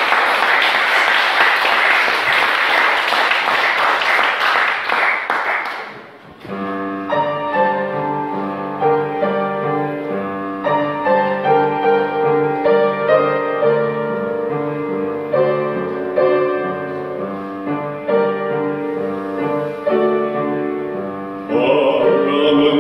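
Audience applauding for about six seconds, then an upright piano playing the introduction to a Korean art song. A bass singer's voice comes in near the end.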